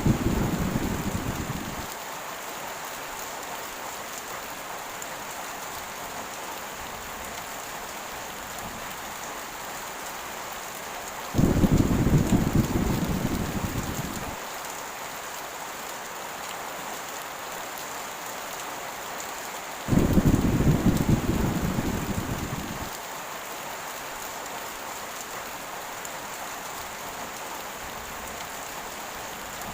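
Steady heavy rain with thunder rumbling. One rumble fades out just after the start, and two more come about 11 and 20 seconds in; each starts suddenly and dies away over about three seconds.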